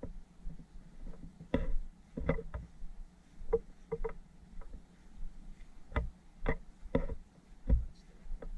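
Irregular soft knocks and thumps, about one or two a second, over a low steady hum.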